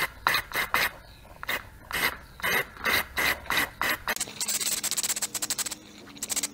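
Aerosol spray paint can giving about a dozen short hissing squirts of touch-up paint, then a fast rattle for about a second and a half.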